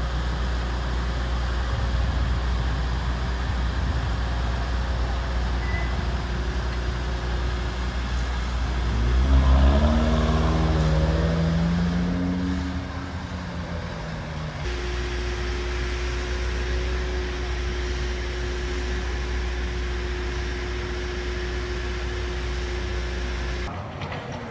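Road traffic: a steady low rumble, and about nine seconds in a vehicle's engine note rises for a few seconds as it accelerates. In the second half a steady hum holds one pitch under the rumble.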